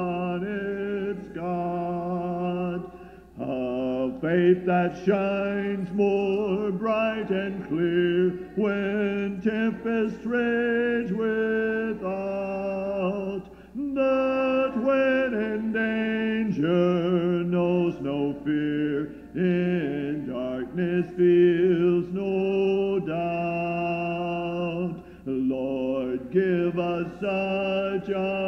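A cappella hymn singing by a group of voices in parts, with no instruments. Slow phrases of held chords, with brief breaks between lines.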